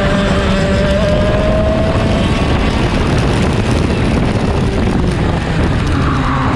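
Two-stroke racing kart engine at high revs heard from onboard, its whine rising in pitch over the first couple of seconds as the kart accelerates down the straight, then dipping and climbing again near the end. Heavy wind rumble on the microphone runs underneath.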